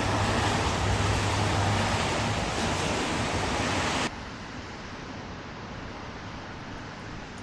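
Steady rush of sea waves, loud for about four seconds and then cutting off abruptly to a quieter, steady rushing ambience.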